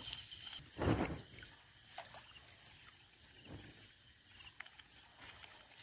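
Fishing net being hauled by hand into a boat, the wet net rustling and splashing, loudest in a swish about a second in. Insects chirp high and steadily in the background.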